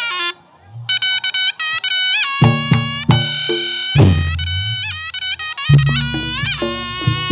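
Instrumental reog accompaniment: a nasal, bending melody on a slompret, the Javanese shawm. Low drum and bass notes join about two and a half seconds in.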